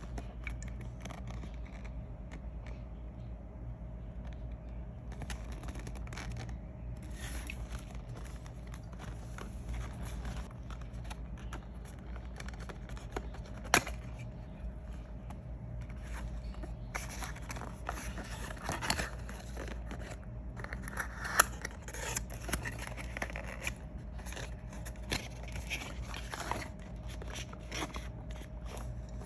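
Packaging being unpacked by hand: scraping, rustling and crinkling, with occasional sharp clicks, the loudest about two-thirds of the way in, over a steady low hum.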